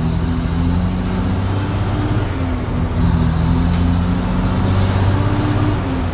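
Tractor-trailer's diesel engine running steadily, a low pulsing rumble with an even pitch.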